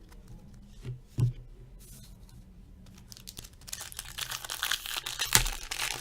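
Plastic wrapper of an Upper Deck Portfolio hockey card pack being torn open and crinkled, a dense crackling that starts about halfway in and grows toward the end. It is preceded by a single short knock about a second in.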